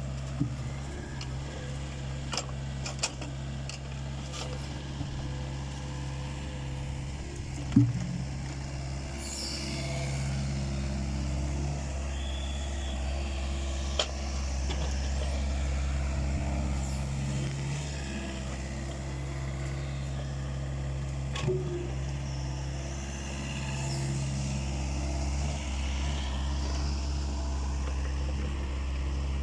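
Takeuchi excavator's diesel engine running steadily, rising a little about ten seconds in, with a few sharp knocks scattered through, the loudest about eight seconds in.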